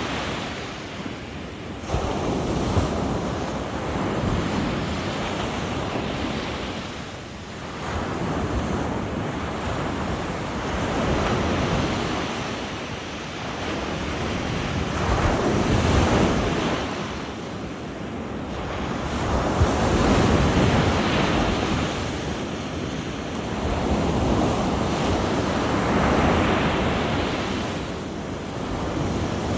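Sea waves breaking on the shore, the surf swelling and falling back every four to five seconds.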